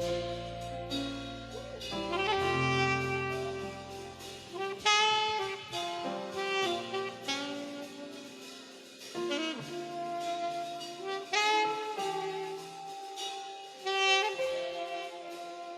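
Saxophone playing a slow worship melody of held notes over sustained backing chords.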